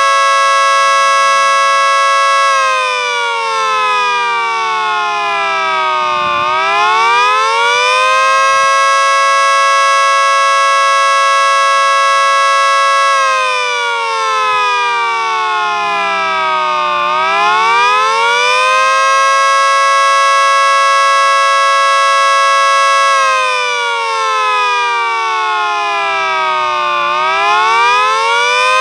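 Mini 3T22B three-tone siren sounding the Attack signal: its chord holds steady for a few seconds, slides down in pitch over about four seconds, then quickly winds back up. It goes through this cycle three times.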